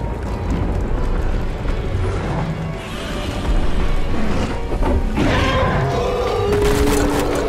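Dramatic action soundtrack music over heavy low rumbling, with sharp hits about five seconds in and again near the end.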